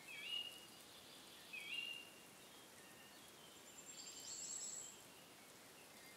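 Faint birdsong over a soft hiss: two short whistled phrases, one right at the start and one nearly two seconds in, then a thin high trill about four seconds in.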